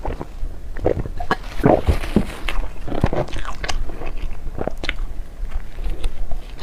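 Close-miked eating of dessert: biting and chewing with irregular sharp little clicks and wet mouth sounds.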